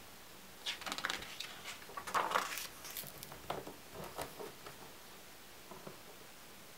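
A page of a large photo book being turned by hand. A crisp paper rustle with a few flicks starts about a second in and peaks near the middle, followed by a few softer rustles as the page settles.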